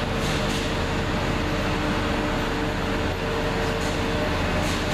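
Steady machinery noise from a clay-brick works: an even drone with a constant hum and low rumble.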